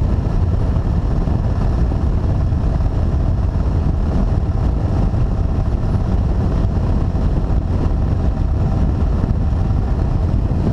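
Cruiser motorcycle riding at steady road speed: a constant engine drone mixed with wind rushing over the microphone.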